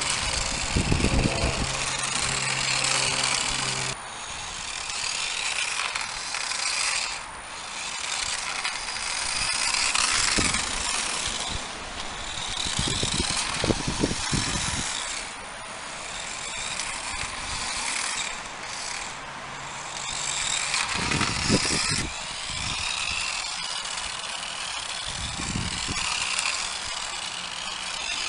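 Toy remote-control car's small electric motor whining and its tyres spinning as it is driven, the pitch rising and falling as it speeds up and slows, with a few low thumps along the way.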